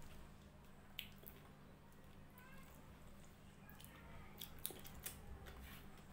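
Faint wet squishes and small clicks of fingers mixing rice with sour lentil dal on a plate, with chewing.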